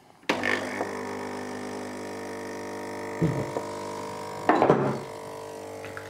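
Delonghi ECP3420 espresso machine's vibratory pump switching on and buzzing steadily as it pushes water through the pressurized portafilter to brew a shot. Two brief louder knocks come about three and four and a half seconds in.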